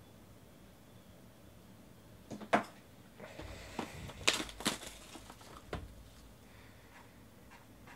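Cardboard hobby box of trading cards being handled: a sharp knock about two and a half seconds in, then a run of knocks and scraping as a box is taken off a stack and set down on a table.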